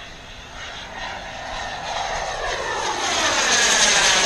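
Small gas-turbine engine of an RC J-10 model jet in flight, growing steadily louder as it makes a close pass, with a steady high whine over the rush of the exhaust.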